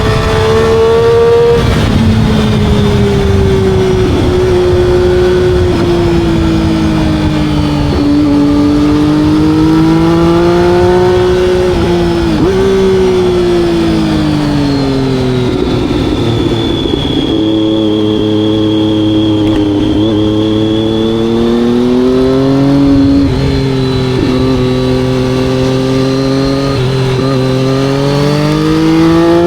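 Motorcycle engine running under way, its note rising and falling slowly with the throttle, with a few sudden steps in pitch.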